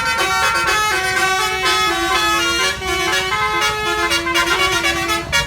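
Bus 'basuri' musical horn playing a melody, its notes stepping up and down in quick succession over a low rumble, cutting off abruptly near the end.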